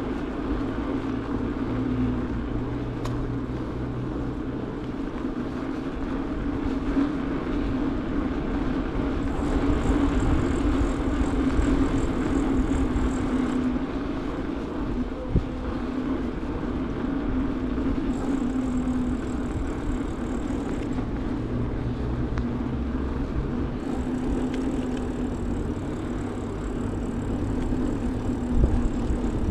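Bicycle rolling along a paved city street: steady tyre rumble and wind on the microphone, with a faint high whine that comes and goes. A few sharper knocks near the end as the bike jolts over the pavement.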